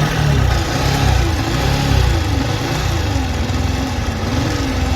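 Yamaha R15 V3's 155 cc single-cylinder engine running at idle with an abnormal droning 'ghun ghun' noise from inside the engine, which the mechanic traces to a faulty stator (coil plate) and a worn timing chain.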